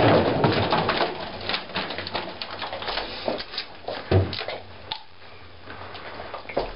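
Small refrigerator being opened and rummaged: a run of clicks, knocks and rattles, with a louder knock about four seconds in, over a faint steady low hum.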